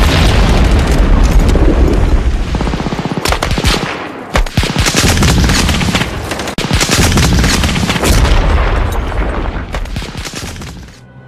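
Battle sounds: rapid machine-gun fire and rifle shots over a deep rumble of explosions, with short lulls, dying away near the end.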